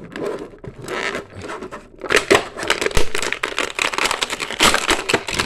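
Stiff plastic action-figure packaging being worked and pulled apart by hand: continuous crinkling and rustling with many short clicks and cracks.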